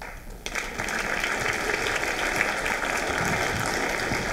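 Audience applauding, a dense patter of many hands clapping that starts about half a second in.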